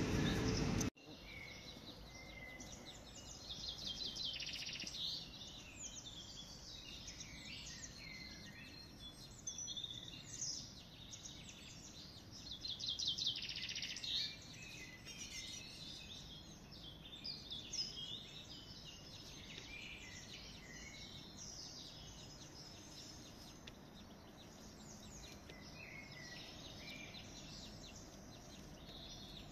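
Songbirds chirping and singing in short, rapid trills over a faint steady background. A louder noise cuts off abruptly about a second in.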